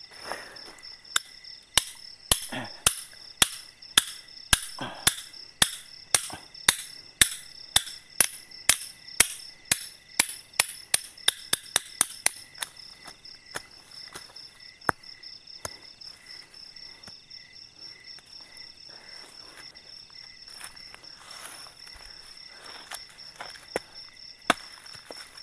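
Tent pegs being hammered into the ground: a long run of sharp knocks, about two to three a second, quickening and getting lighter before they stop, followed by a few scattered knocks and one harder knock near the end. Insects trill steadily underneath.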